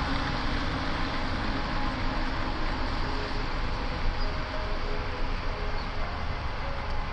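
Steady rumbling noise of a city at night, like distant traffic, heard through a phone's microphone.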